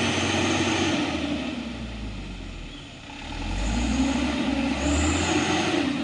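Truck's diesel engine revving hard, easing off about halfway through and then revving up again, with a thin high whine at the loudest moments.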